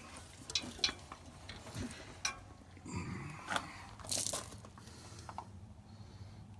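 Scattered clicks, knocks and scraping from hands-on work on a baler's pickup, with the loudest clatter about four seconds in.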